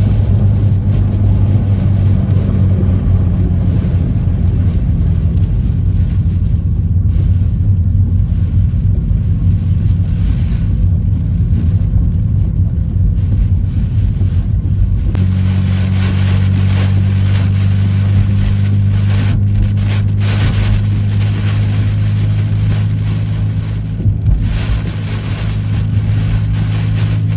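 Car running at a steady speed inside the cabin, with a constant low engine and road drone. A hiss of wind noise strengthens about halfway through, as the drone shifts slightly.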